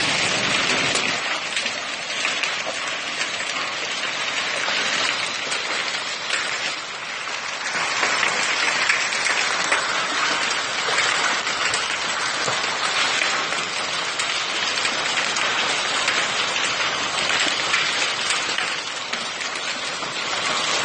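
Heavy hail falling with rain, a dense steady crackling hiss of hailstones striking the ground and surrounding surfaces.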